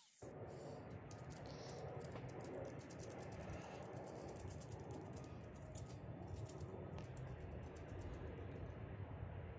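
Steel hex nuts clicking and rattling as they are spun by hand onto a threaded bolt: a quick run of light metallic clicks that dies away near the end, over a low steady hum.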